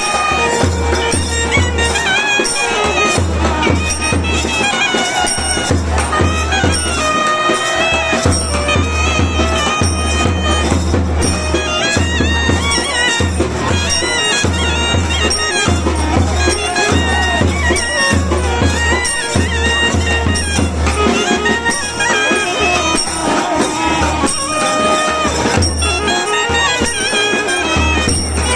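South Indian temple procession music: a nadaswaram-like double-reed wind instrument playing a winding melody over repeated low drum strokes.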